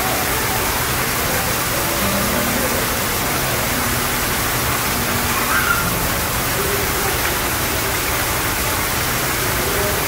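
Small artificial rock waterfall splashing steadily into a koi pond: a continuous even rush of falling water.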